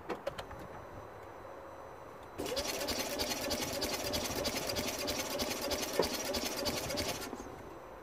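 Starter motor cranking the Smart Fortwo 451's 1.0-litre three-cylinder petrol engine for about five seconds, beginning a couple of seconds in after a few light clicks, without the engine firing. Cranked against a compression gauge on the first cylinder, it builds only about 50 psi where 150–160 is expected: very low compression, the reason this engine will not start.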